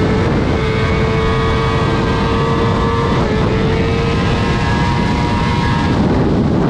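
Sport motorcycle engine running steadily at high revs under load through a corner, its pitch dipping briefly about three seconds in, with wind rush over a helmet-mounted microphone.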